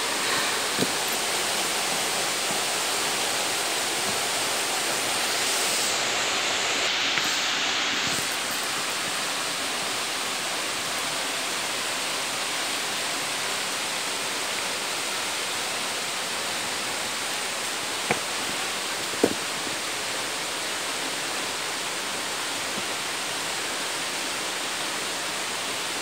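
Steady rushing of a nearby waterfall and mountain stream, swelling briefly about a quarter of the way in, with two faint knocks about two-thirds through.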